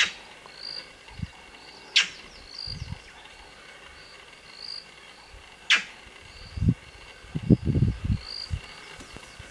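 Insects chirring steadily in the bush, with a short high chirp repeating about once a second. Three sharp, very short high snaps or calls cut through, and a few low rumbles come near the end.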